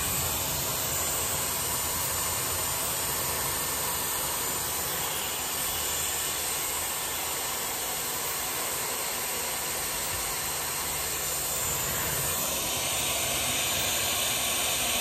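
Dyson Airwrap hair styler running with its 1.6-inch curling barrel attached, giving a steady rush of blown air.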